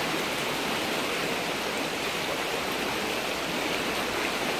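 River in flood, its muddy water rushing fast over the bed and a small rapid, making a steady, even rush of water.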